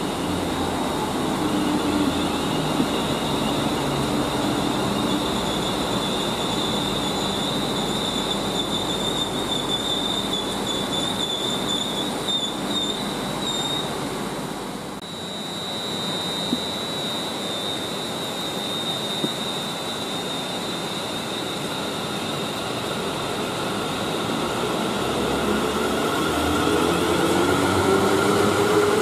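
Train running on the main line with a high, steady wheel squeal over the rumble of the wheels. The sound dips briefly about halfway, and a rising whine comes in near the end.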